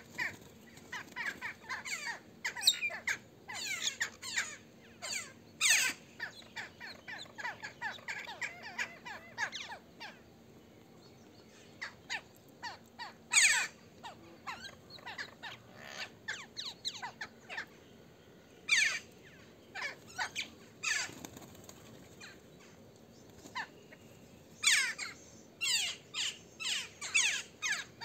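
Crows cawing and mynas calling, many short harsh calls in bouts with a couple of brief lulls.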